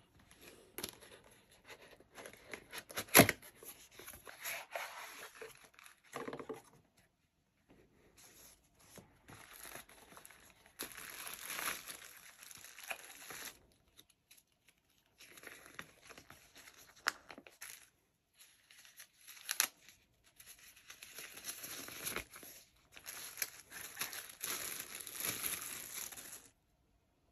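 Cardboard box and plastic wrapping handled and opened: cardboard sliding and flaps tearing open, a plastic bag crinkling and paper rustling, in spells with short pauses. A sharp knock about three seconds in.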